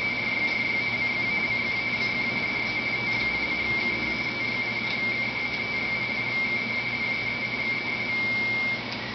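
RTTY (radioteletype) signal from a ham-radio HF transceiver: a warbling two-tone data signal near 2 kHz over a steady hiss. Near the end it settles on one steady tone, then drops out briefly.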